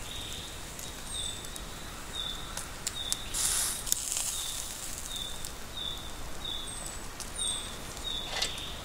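Meat skewers sizzling over hot charcoal, with scattered crackles and a short hiss about three and a half seconds in. Behind it, short high chirps repeat every half second or so.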